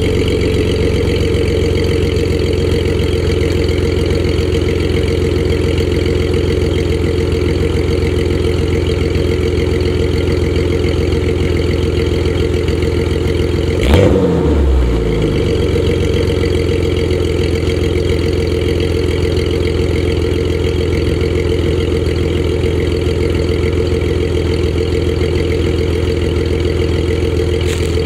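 Jeep Cherokee XJ idling steadily after a cold start through a 2.5-inch side-exit exhaust with a stainless Nexus center-inlet, center-outlet muffler, the tailpipe exiting just ahead of the rear wheel. About halfway through there is a single sharp thump with a brief wobble in the engine note.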